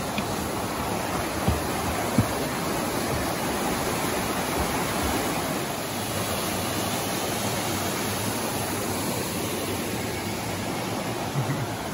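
Rushing white water of a rocky forest river cascade, a steady, even hiss and roar of water over stones, with a few soft low thumps in the first couple of seconds and again near the end.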